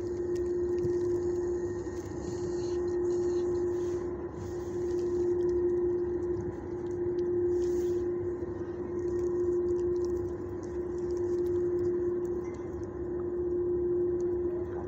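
Steady mechanical hum at one pitch, swelling and fading about every two seconds.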